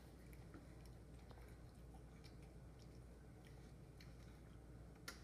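Near silence: a low steady room hum with a few faint, short clicks scattered through it, one a little sharper near the end.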